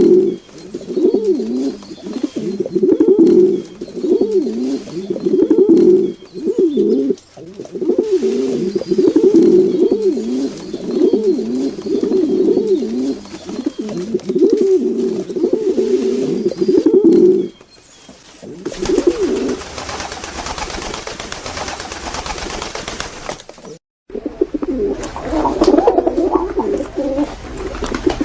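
Pigeons cooing: repeated low, throaty rolling phrases, one after another. About two-thirds of the way through the cooing gives way to a few seconds of hissing noise. After a brief dropout the cooing resumes.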